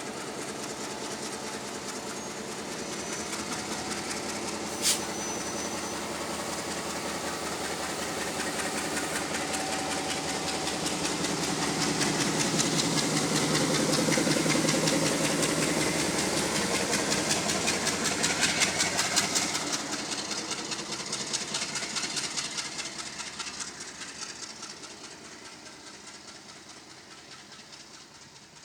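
Diesel engine of a Sri Lanka Railway M10A locomotive running as it shunts past, growing louder to a peak about halfway through and then fading away. A single sharp click sounds about five seconds in.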